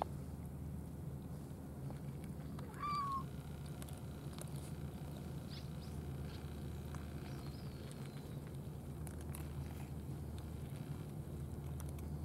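A cat meows once, briefly, about three seconds in, over a steady low hum.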